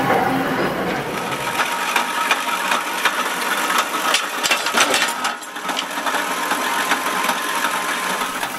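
Workshop machinery running, a metal lathe turning a threaded steel rod and then a press, with a string of sharp metallic clicks and knocks as steel parts are handled in the press die.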